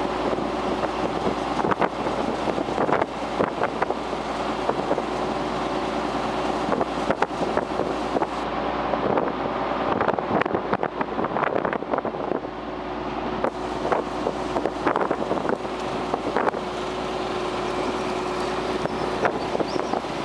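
Tractor engine running steadily while under way, heard from inside the cab, with frequent short rattles and knocks throughout.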